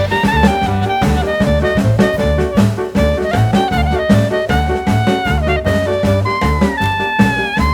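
Upbeat jazzy background music: a saxophone-like melody sliding between notes over a steady swing beat of drums and bass.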